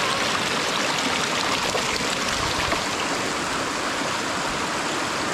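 Creek water running, a steady rushing flow.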